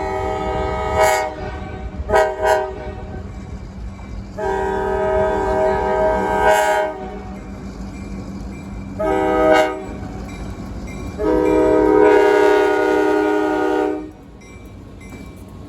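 Multi-chime air horn of a diesel freight locomotive sounding a series of blasts: a long blast that ends about a second in, two quick toots, then a long, a short and a final long blast that cuts off near the end. A steady low diesel engine drone runs beneath.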